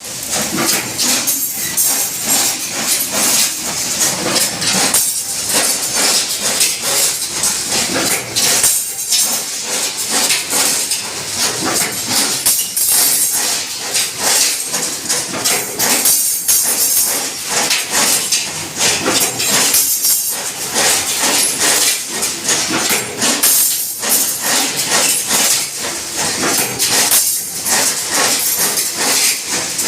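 Prima+ construction machine running: a continuous dense rattling clatter with a strong hiss over it, steady in level throughout.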